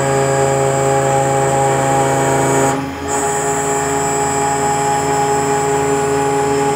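Homemade mini CNC router milling delrin: the brushless DC spindle and stepper motors run with a steady high whine and hum as the end mill cuts. About three seconds in the sound dips briefly, then picks up again.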